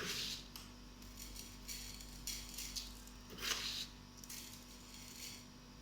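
Sugar being sprinkled over toasted guava pieces: a series of short, faint hissing bursts of falling granules, about eight of them.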